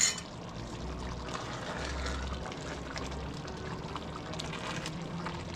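A sharp clink at the start, then a pot of tomato meat sauce simmering slowly on the stove: a steady soft bubbling with faint crackles.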